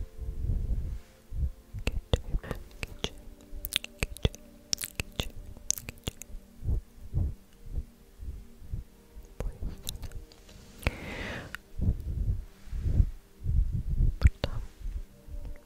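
Close-microphone ASMR trigger sounds: a run of sharp mouth clicks and soft low thumps from hands near the microphone, with a breathy blow about eleven seconds in.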